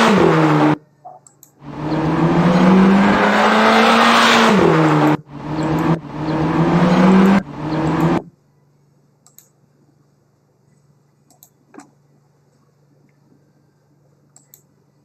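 Car engine sound effect revving, its pitch rising and falling, played back in several pieces that cut off abruptly. After about eight seconds it stops, leaving a faint hum and a few faint clicks.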